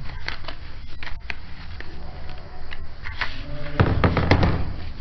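Handling noise: light clicks and taps as hands work a mobile phone in its case over a counter, with a louder rustling bump a little before the end.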